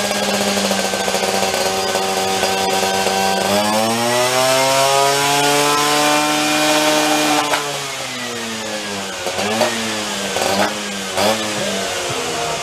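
Vespa scooter engine running on a dynamometer: it runs steadily at first, revs up about three and a half seconds in and is held high for a dyno pull, drops back near eight seconds, then gives a few short throttle blips.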